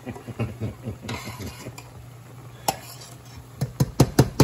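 Metal spoon stirring a simmering Marsala sauce in a stainless steel pan, the sauce bubbling softly. Near the end comes a quick run of sharp clinks as the spoon knocks against the pan.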